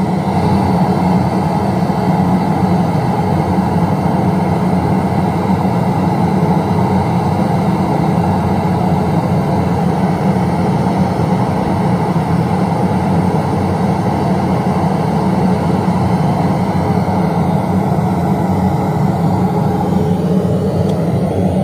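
Test noise played loud through a stack of subwoofer boxes and line-array speakers while the system is measured and tuned: a steady, unbroken rushing noise, heaviest in the low end.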